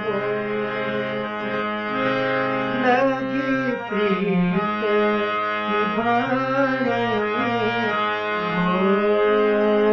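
Harmonium playing sustained notes and chords, with a man singing a Himachali folk song over it in short phrases, his voice bending and wavering in pitch above the steady reeds.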